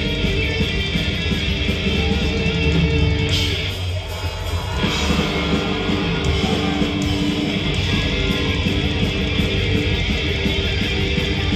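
A heavy metal band playing live: an instrumental passage led by electric guitar, with a short drop in the sound about four seconds in.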